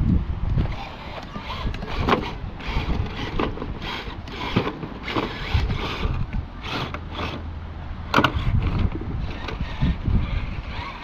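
Redcat Gen 8 RC rock crawler working over rocks: irregular clicks, scrapes and clatter of its drivetrain and tyres against stone, with a low rumble underneath.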